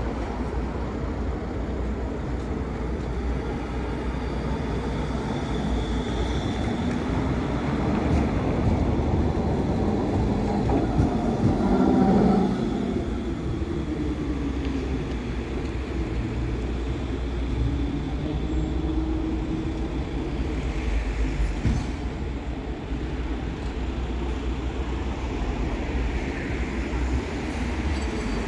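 Electric low-floor tram pulling away from its stop and passing close by. Its electric drive gives a rising whine as it speeds up, over the rumble of wheels on rail, loudest about twelve seconds in, then easing to an even rumble of street traffic.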